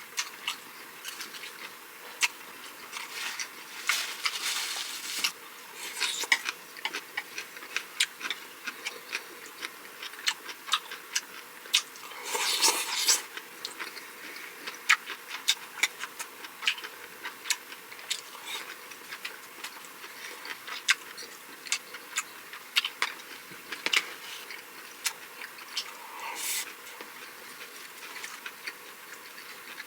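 Close-miked eating sounds: chewing with sharp wet mouth clicks several times a second, and a few longer, noisier chewing stretches.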